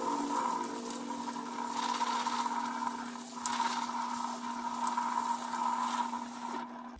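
Kitchen faucet running onto chickpeas in a plastic colander, water splashing through into a stainless steel sink as the drained canned chickpeas are rinsed. A steady faint whine runs under the water, which stops near the end.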